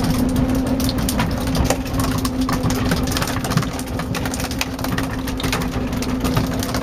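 Fishing boat's engine running steadily with a low hum, with scattered light knocks and clicks over it.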